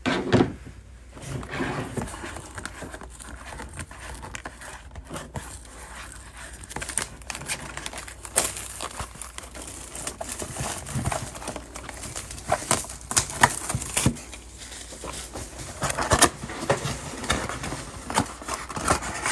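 Plastic shrink wrap on a trading card box crinkling and tearing as it is peeled off by hand: an irregular run of crackles, busiest in the second half.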